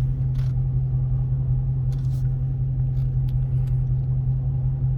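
2020 Dodge Charger Scat Pack's 392 HEMI V8 idling with a steady low drone, heard from inside the cabin. It sounds quiet on its stock exhaust.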